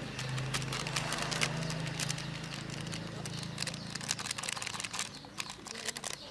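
Plastic seasoning packet crinkling and crackling in the hands as it is squeezed and shaken over raw pork in a glass bowl, with many short sharp crackles. A low steady hum runs underneath and fades out after about four seconds.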